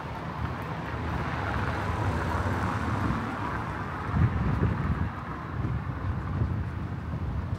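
A car passing on a street, its tyre and engine noise swelling to a peak about three seconds in and fading, with wind buffeting the microphone.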